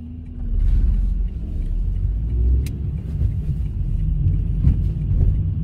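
Low, steady rumble of a car heard from inside the cabin, rising about half a second in, with a single short click near the middle.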